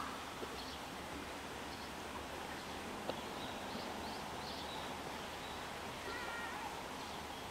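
Steady outdoor background noise, with a few faint short high chirps and a single sharp click about three seconds in.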